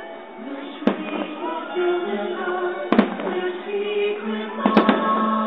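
Fireworks show soundtrack music with sustained orchestral tones, heard thin through a phone's microphone. Firework bursts crack over it about a second in, again about three seconds in, and as a quick pair of cracks near the end.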